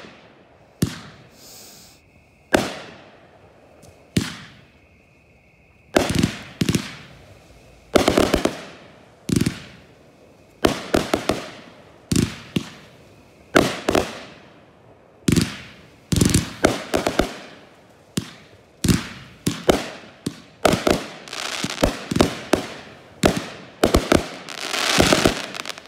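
Consumer aerial fireworks bursting overhead as sharp bangs. A few single reports come several seconds apart at first; from about six seconds in they come in a rapid barrage, some in quick clusters.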